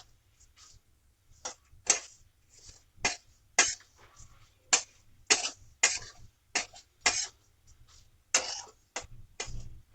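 Spatula scraping and tossing dry flattened rice (poha) in a hot kadhai as it is dry-roasted without oil: short, sharp scraping strokes about twice a second at an uneven pace.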